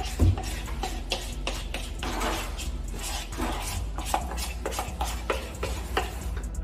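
Spatula scraping brownie batter out of one bowl into another, a run of short irregular scrapes and light taps against the bowl.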